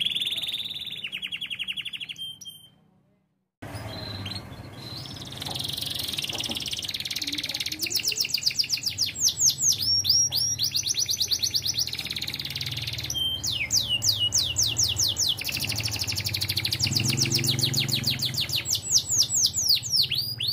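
Orange canary singing: a high trill, then after a sudden break about three seconds in, long runs of fast, repeated notes that each sweep down in pitch, loud and ringing.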